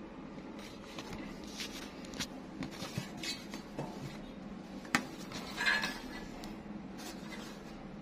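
Metal collector's tin and its lid being handled and closed: a series of light taps and clinks, with one sharp click about five seconds in and a short scraping rustle just after, over a faint steady hum.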